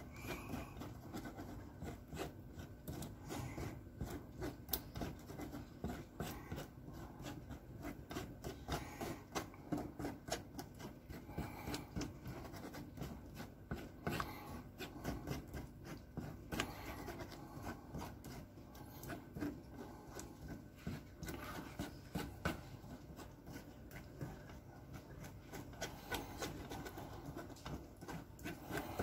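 A wooden spoon scraping and rubbing against a stainless steel mesh sieve as a thick sauce is pushed through it, in repeated irregular strokes.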